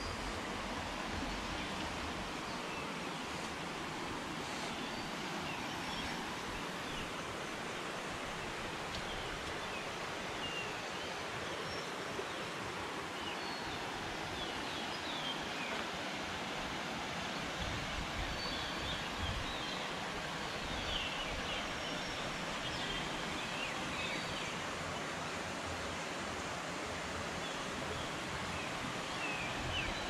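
Shallow forest stream running with a steady rush of water, with scattered short high chirps over it.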